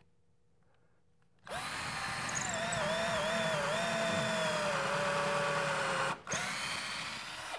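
Cordless drill with a 3/16-inch bit boring a pilot hole up into a wooden ceiling stud. The motor starts about a second and a half in, its whine wavering and dipping as the drill strains in the stud wood, then runs steadier; it stops briefly about six seconds in, runs again, then stops near the end.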